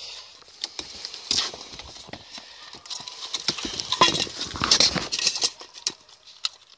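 A young dog chewing and crunching bones from a steel bowl: irregular crunches and clicks, thinning out near the end.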